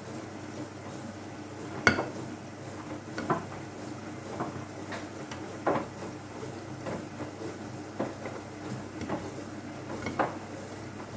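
Hoover All In One washing machine running early in a wash cycle: a steady hum broken by irregular metallic clanks about once a second, the loudest about two seconds in.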